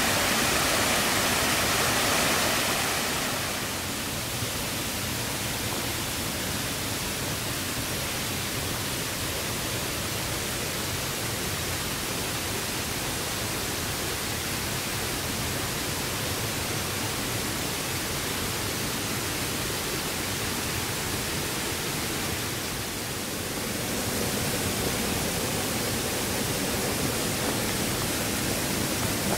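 A small waterfall pouring into a rocky stream, a steady rush of water. It is louder and brighter for the first three seconds, then settles into a softer, even rush.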